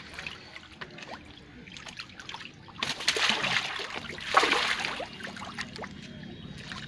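Water splashing around a mesh keep net of caught catla, the fish stirring in the shallow water, with two louder bursts of splashing about three and four and a half seconds in.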